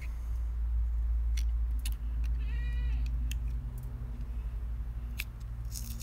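A goat bleats once, a short wavering call about halfway through, over a steady low rumble, with a few sharp clicks.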